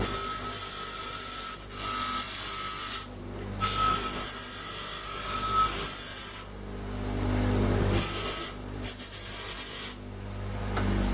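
Stainless steel tube being dressed against an abrasive in several long scraping passes, each a second or more long, with short breaks between them.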